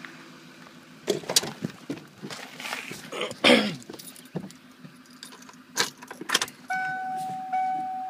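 Keys jangling and a series of clicks and clunks as the pickup's door is opened and someone climbs into the cab. About three-quarters of the way in, a steady dashboard warning chime comes on, broken off once, as the key is turned on and before the engine is started.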